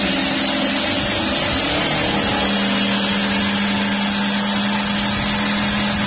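Electric jigsaw running and cutting through a plywood sheet, a loud, steady buzz of motor and reciprocating blade. A steady low hum settles in about two seconds in.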